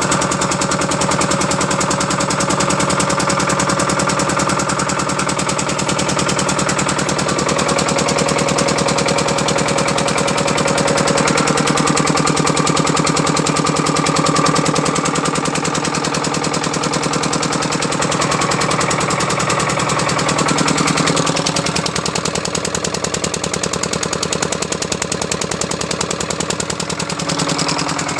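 Small 5 hp single-cylinder engine driving a 4 kVA generator, running steadily with a fast, even train of firing pulses. Its tone shifts about two-thirds of the way through, then settles again.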